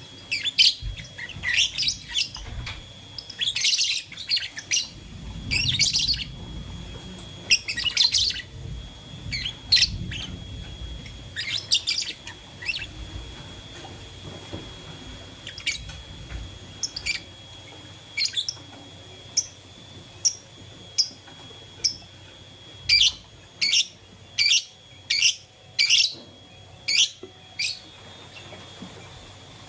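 Lovebirds chirping: short, sharp, high calls in irregular bouts, then a run of about ten evenly spaced chirps, roughly two a second, near the end.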